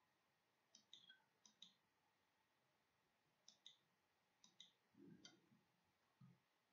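Faint computer mouse clicks, about five pairs of quick clicks with a soft low thud about five seconds in.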